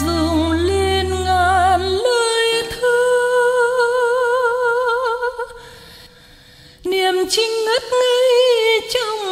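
Wordless female vocal humming a slow melody with wide vibrato over soft accompaniment, with one long held note in the middle. The music drops away for about a second before the melody returns near seven seconds in.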